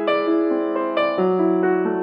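Background piano music: gentle notes sounding one after another, with new notes struck about once a second.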